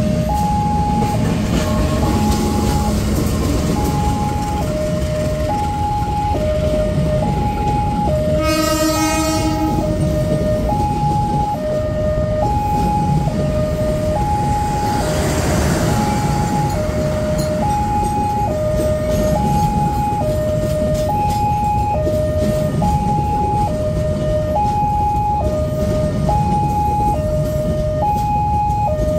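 Railway level-crossing warning alarm sounding a steady two-tone hi-lo signal, switching about every half second, while a train runs past. A short locomotive horn blast of about a second sounds about eight seconds in.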